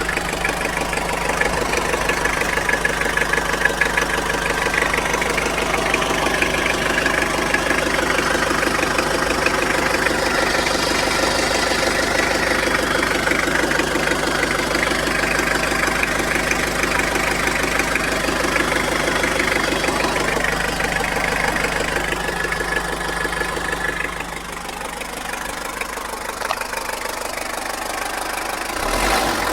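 Toyota engine running with a fast, regular knock, the knocking noise the engine has developed. About twenty-four seconds in the sound drops a little in level.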